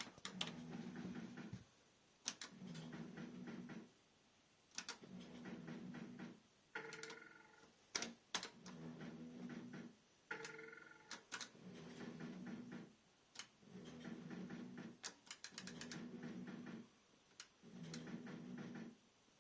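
Fruit machine spinning its reels game after game: a low hum for about a second and a half on each spin, ending in a cluster of clicks as the reels stop, about every two seconds. Short electronic beeps come twice in between.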